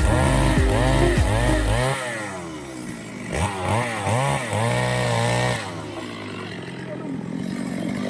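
Two-stroke chainsaw engine revved up and down over and over, its pitch rising and falling about twice a second. It cuts back to a quieter, steady sound about five and a half seconds in.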